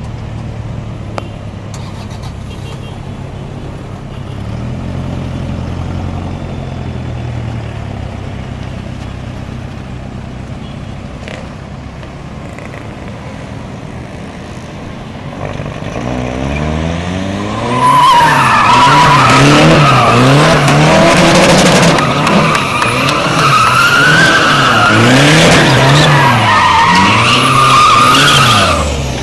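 Toyota Innova turbodiesel through a straight-pipe exhaust, running at low, steady revs at first. From about sixteen seconds in it is revved hard up and down again and again, and a loud wavering squeal of tyres skidding on pavement rides over the engine.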